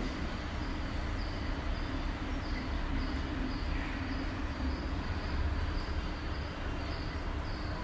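Steady low rumble and hiss of room background noise, with no distinct event.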